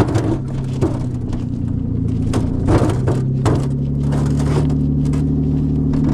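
Car engine running steadily while towing a rock-loaded trailer, with several short knocks and crunches of rock in the first four and a half seconds.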